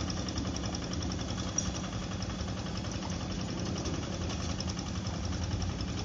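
Single-cylinder diesel engine of a two-wheel hand tractor running steadily while it plows a flooded rice paddy.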